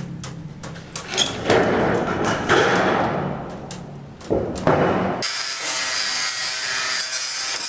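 Construction tool work: uneven scraping and knocking, then about five seconds in a steady high-pitched hiss of a tool running.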